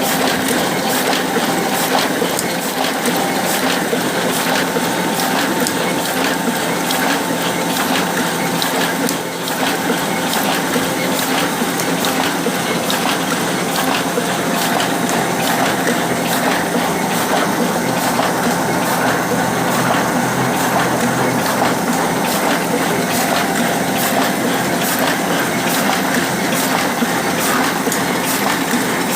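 Solna 225 offset printing press running steadily: a continuous mechanical whirr with rapid, regular clicking of its moving parts.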